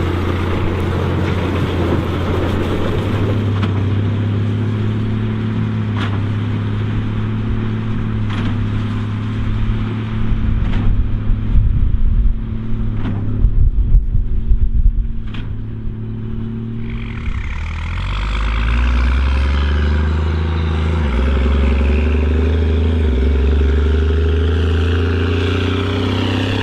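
Case 2294 tractor's diesel engine running steadily under load, pulling a Massey Ferguson 190 big square baler. Sharp knocks come about every two seconds through the middle, and the engine's tone changes a little past halfway.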